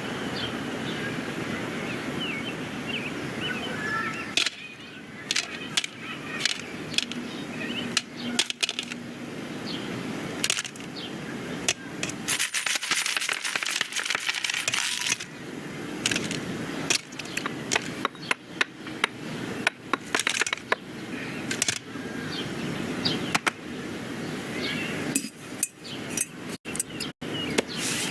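Film sound-effects track without music or dialogue: a run of scattered clicks, knocks and light clattering impacts over a steady background ambience. A stretch of hiss comes about halfway through.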